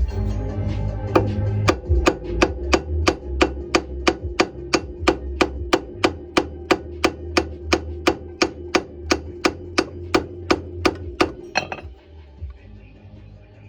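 Hammer blows on steel, about three a second with a ringing note, driving the old wheel studs out of a Honda front hub; the blows stop about twelve seconds in. Electronic music plays in the background.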